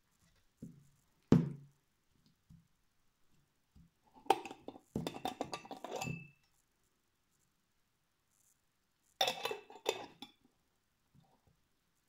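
Glass jar and its lid handled on a tabletop: a single knock about a second in, then two spells of clinking and rattling of glass and lid, around the middle and again near the end.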